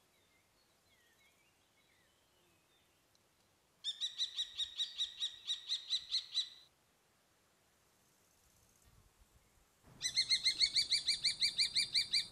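Common kestrel calling a rapid, evenly repeated series of sharp high notes, about five to seven a second, in two bouts: one of about three seconds, then after a pause a louder one that runs on to the end.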